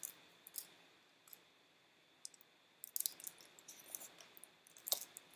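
Faint, scattered clicks and light paper rustles from a large picture book being handled, with a brief quiet gap and a cluster of clicks about three seconds in.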